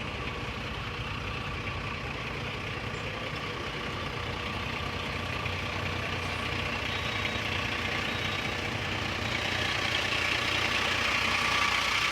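Fire engine's engine running steadily, growing louder toward the end.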